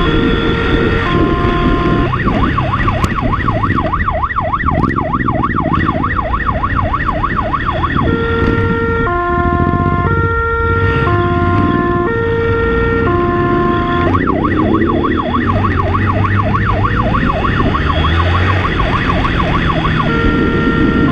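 Police motorcycle siren on a two-tone pattern, switching about once a second, that twice changes to a fast warble of about five sweeps a second and back again, over the motorcycle's engine running under way.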